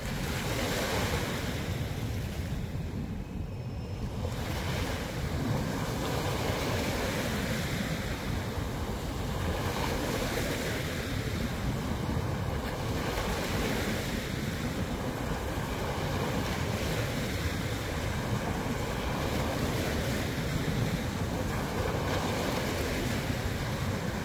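Wind buffeting the microphone over small waves washing onto the shore, a steady rushing noise with no distinct events.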